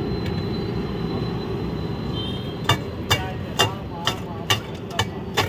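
Steady street-stall background noise. About halfway through, a run of about seven sharp knocks begins, roughly two a second, as the vendor handles food and steel utensils at the snack cart.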